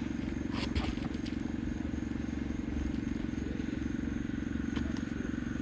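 A steady, low mechanical drone like a running engine, with a few faint clicks and taps under a second in.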